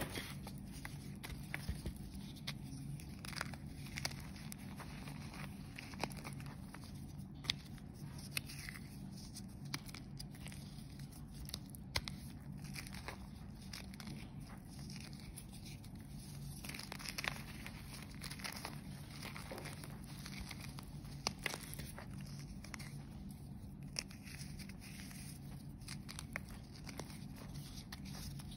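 Dyed, reformed gym chalk being crushed and crumbled between the fingers: irregular dry crunches and snaps, with soft crumbling between them.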